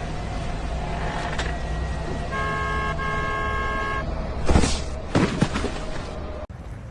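A horn-like tone sounds for under two seconds with a short break in the middle, over a steady low rumble. About a second later come two loud whooshing swishes, and the sound changes abruptly near the end.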